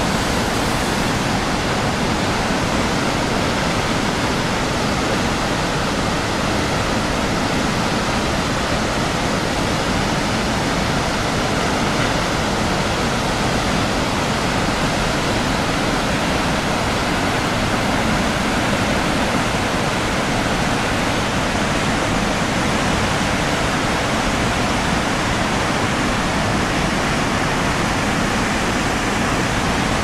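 A waterfall and the whitewater rapids below it: a loud, steady rush of falling and churning water that does not change.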